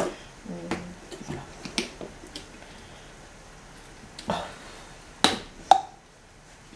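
Plastic cap of an olive-oil bottle being pried and pulled open by hand: a few scattered clicks, then two sharp plastic snaps about half a second apart.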